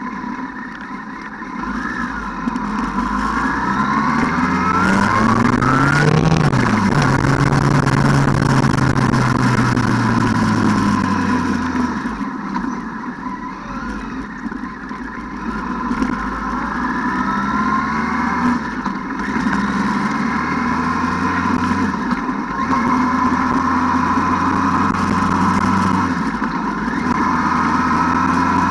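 ATV engine running under load, revving up over the first few seconds, holding, easing off about halfway through, then picking up again and running steadily.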